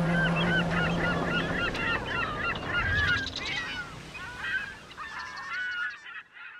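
A flock of birds calling, many short overlapping cries that fade away near the end. The last held note of the song dies out about a second and a half in.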